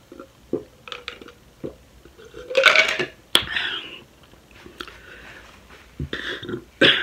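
Small gulping clicks of someone swallowing a sparkling lemon-lime soda, then a loud burp about two and a half seconds in, brought up by the carbonation, followed by a shorter breathy sound. A couple of short noisy sounds come near the end.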